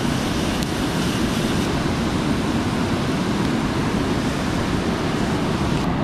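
Steady rush of a river running high after heavy rain, white water pouring over rocks in an even, unbroken noise.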